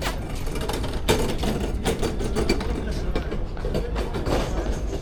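Busy outdoor market ambience: background voices over a steady low rumble, with scattered sharp clicks and knocks.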